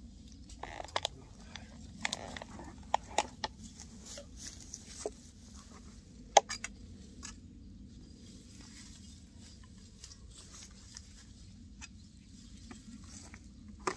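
Irregular light clicks and taps of a hammer and metal fence poles, with rustling of plastic mesh netting as a net fence is put up. One sharp click about six seconds in is the loudest.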